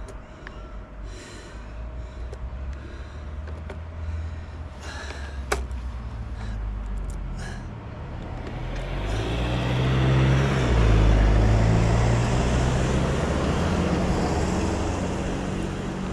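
A motor vehicle passing by: engine and road noise swell from about eight seconds in, are loudest around eleven seconds, then ease off. Before that there are light clicks and knocks over a low rumble, with one sharp click about five and a half seconds in.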